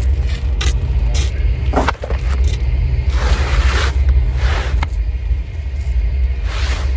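Propane roofing torch burning with a steady low roar while a patch is heated onto the roof. Several short clicks and three longer scraping hisses sound over it in the second half.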